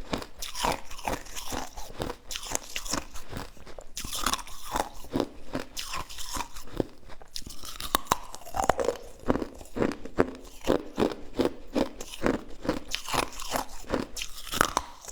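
Close-up mouth sounds of someone biting and chewing crunchy food, a rapid, irregular run of crisp crunches.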